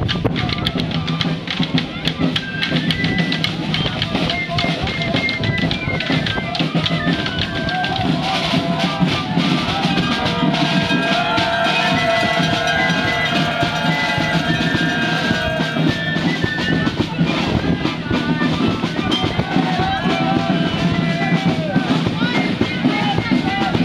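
Marching drum corps playing snare drums and a bass drum in a steady rhythm, with voices mixed in.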